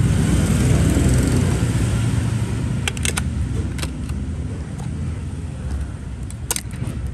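Low rumble of passing road traffic that eases off after about three seconds, with a few sharp clicks, the clearest about three seconds in and again near the end.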